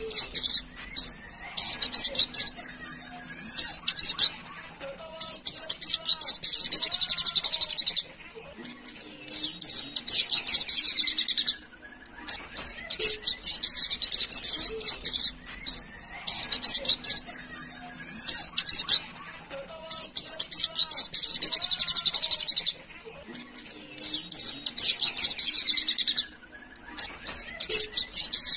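Olive-backed sunbird (sogon) singing: high, fast twittering phrases a few seconds long, each followed by a short pause, repeated over and over.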